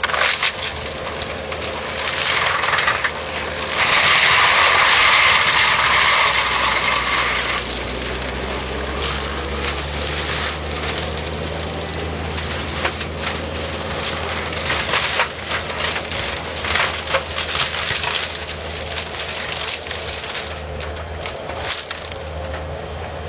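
Skid-steer loader's engine running under load while its brush mulcher head shreds brush and small trees: a steady engine drone with cracking and splintering wood over it. The mulching is loudest from about four to seven seconds in.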